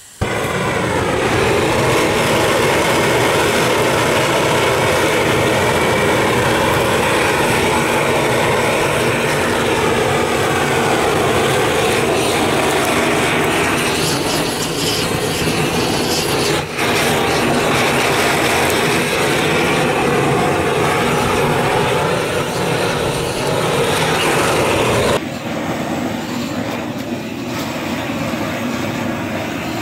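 Gas burner torch flame burning steadily against a cattle head, singeing off the hair and scorching the skin. It starts abruptly just after the start and is quieter for the last few seconds.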